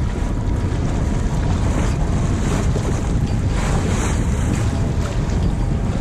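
Steady wind buffeting an action camera's microphone on a sailboat under way, with water rushing past the hull underneath.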